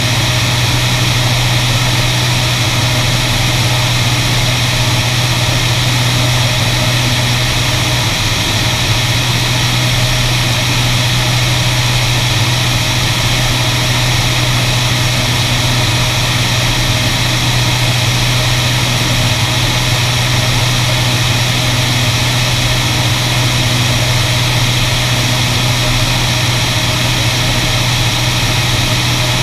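Beriev Be-103 amphibian's twin piston engines and propellers running steadily in flight, with a low hum under heavy airflow rush on the outside-mounted camera. The landing gear is extended for the approach.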